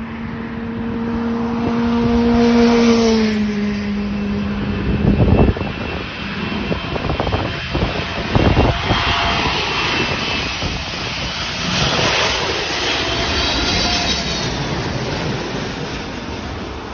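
Jet airliner passing low overhead on its landing approach: the engines run with a broad rush and a steady whine that drops in pitch about three seconds in as it goes by, then fades toward the end. Wind buffets the microphone now and then.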